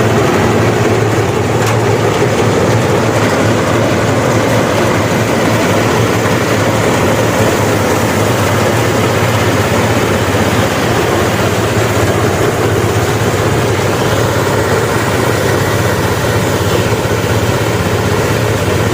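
Engine-driven rice threshing machine running steadily: a constant low engine hum under the rattling rush of the threshing drum.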